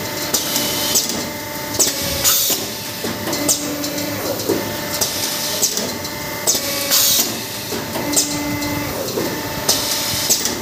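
Automatic hydraulic paper-plate making machine running through its pressing cycle: a steady mechanical hum with short hisses and sharp clicks that recur every few seconds.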